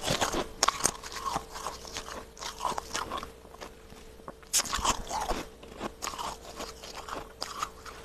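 Fluffy freezer frost crunching in crisp, irregular crackles as it is bitten and chewed, over a faint steady hum.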